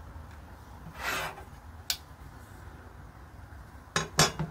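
Steel carpenter's square clinking and knocking as it is set down and positioned on the drawing sheet, with a quick cluster of sharp metallic clinks near the end. A brief scraping swish comes about a second in.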